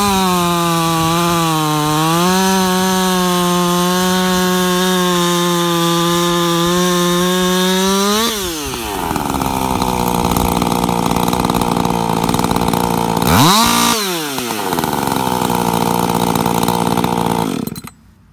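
Ported Husqvarna 562XP two-stroke chainsaw with a modified muffler, held wide open in a cut through a frozen cottonwood log for about eight seconds. The engine then drops to idle, gets one quick rev a few seconds later, idles again and is switched off near the end.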